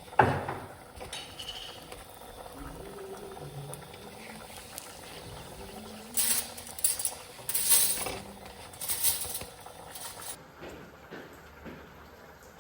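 Kitchen utensil handling: a sharp knock, then scraping and brushing sounds in several short bursts a few seconds later.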